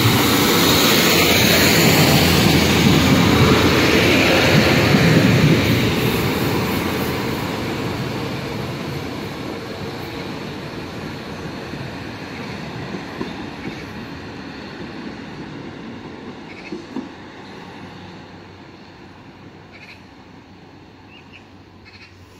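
Class 150 diesel multiple unit running past at close range, its engine and wheel noise loud for the first six seconds or so, then fading steadily as it draws away.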